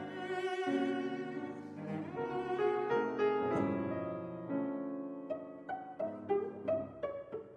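Instrumental passage of a chamber ensemble: a solo cello plays a slow bowed line with vibrato against piano. From about five seconds in, the notes turn short and detached.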